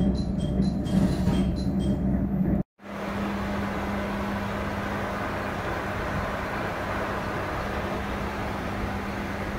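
Nishikigawa Railway NT3000 diesel railcar running at a standstill: first a loud low engine rumble heard from inside the car, with a faint quick repeated high chime. After a brief cut, a quieter steady engine hum with a low drone.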